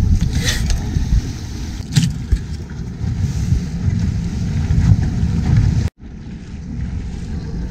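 Wind buffeting the microphone and water rushing past the hull of a small sailboat under way, a steady low rumble with a couple of short knocks in the first two seconds. The sound drops out briefly about six seconds in.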